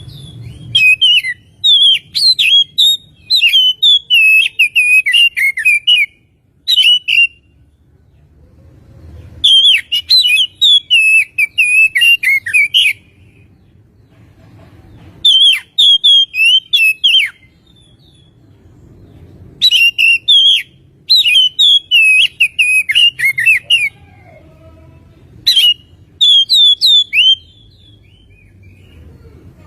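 Oriental magpie-robin (kacer) singing: loud phrases of fast, varied whistled notes and trills, each a few seconds long, with short pauses between them.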